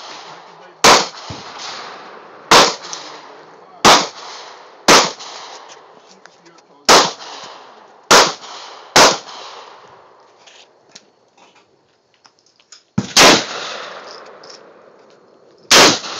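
Nine loud gunshots fired one at a time at uneven intervals, each followed by a short echoing tail. There is a pause of about four seconds between the seventh and eighth shots.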